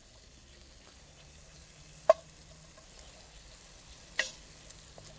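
Sausage slices sizzling faintly in a hot cast-iron Dutch oven while a wooden spoon pushes them around. The spoon knocks sharply against the pot twice, a loud knock about two seconds in and a softer one about four seconds in.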